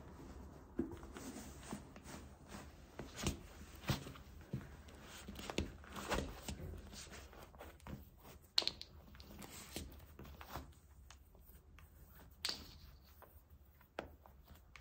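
Scattered light taps, clicks and rustles at an irregular pace, the sharpest click about eight and a half seconds in.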